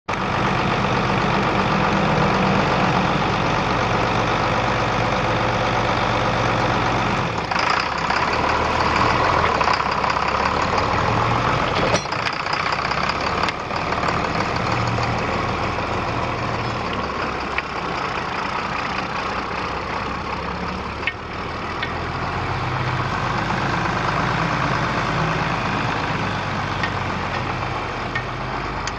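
The six-cylinder turbo diesel engine of a 1978 John Deere 4440H tractor running steadily, its sound shifting abruptly a few times.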